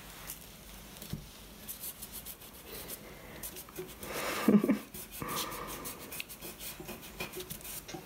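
Fingertips rubbing and smudging oil pastel on paper: a soft, scratchy rubbing with many small ticks, and one louder short scuff about halfway through.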